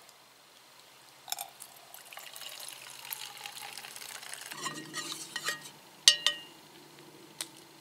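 Freshly brewed coffee poured from a Bialetti moka pot into a cup, followed by a few sharp ringing clinks of pot and cup, the loudest about six seconds in.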